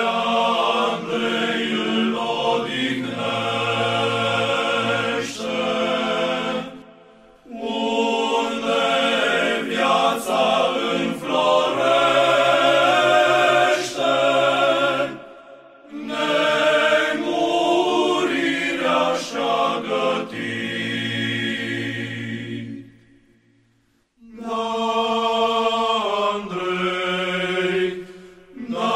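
Choir singing Orthodox church chant in long phrases, each separated from the next by a short pause.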